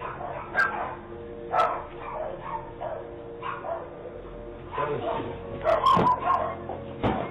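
A dog barking and yipping in short, repeated bouts, loudest about five to six seconds in, over a faint steady hum.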